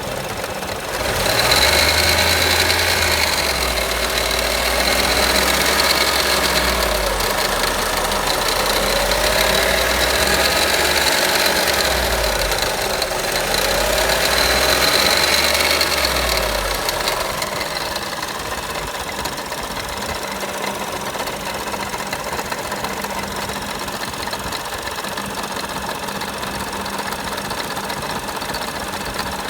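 Audi A1 1.4 TFSI 185 hp twincharged four-cylinder petrol engine at idle. About a second in it is revved, its pitch rising and falling several times. Near 17 s it settles back to a steady idle.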